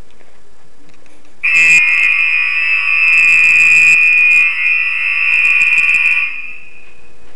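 Apartment building fire alarm sounding during a test: one loud, steady, high-pitched electronic tone that starts about a second and a half in, holds for nearly five seconds, then dies away.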